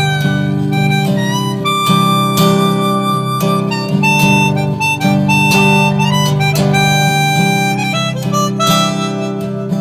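Instrumental break in a folk song: harmonica playing a melody of held notes over strummed acoustic guitar.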